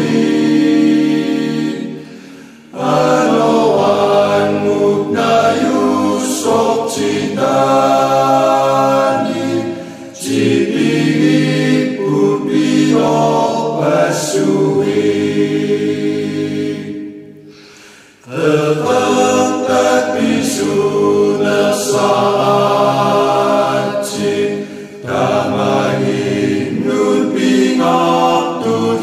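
Choir singing in long held phrases, the music falling away briefly about two and a half, ten and eighteen seconds in.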